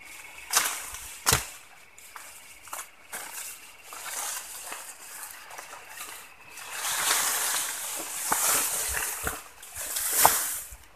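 Footsteps and rustling through tall grass and brush at the water's edge, with two sharp knocks near the start and a longer spell of swishing and rustling in the second half.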